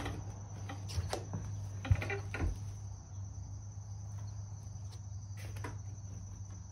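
A few light knocks and one sharper clunk about two seconds in, from the tipped-over push mower and its plastic drain pan being handled on a concrete floor. A steady low hum and a steady high whine run underneath.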